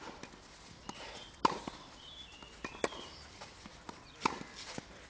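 A tennis ball struck with a racket in a baseline rally on clay: four sharp hits about a second and a half apart, the louder ones every other stroke. Fainter ticks of ball bounces and footsteps on the court come between the hits.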